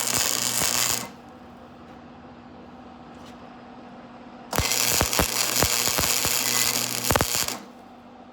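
Electric arc welding: a loud crackling, sizzling arc with sharp pops. It cuts off about a second in, and the arc strikes again for about three seconds from around four and a half seconds in. A steady low hum fills the gap.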